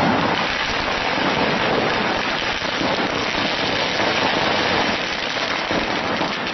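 Burning gas cylinder venting a jet of flame from its top, a steady, dense hiss.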